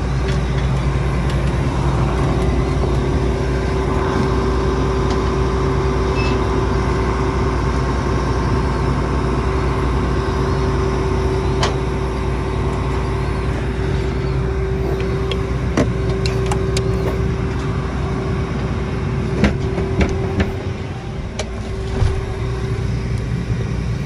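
A John Deere S660 combine's diesel engine running steadily, with a constant whine over the low rumble. A few sharp knocks on the steel steps and platform come in the second half.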